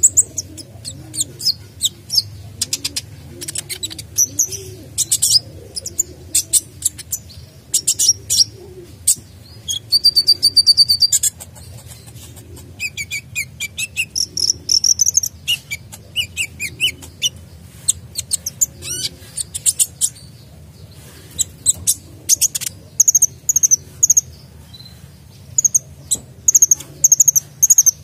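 Caged sunbird singing energetically: rapid bursts of high, thin chirps and short trills broken by brief pauses, its song full of varied phrases. A steady low hum lies underneath.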